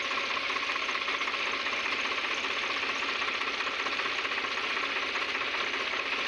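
Tractor engine running steadily, with its PTO shaft turning a belt-and-pulley driven spray pump.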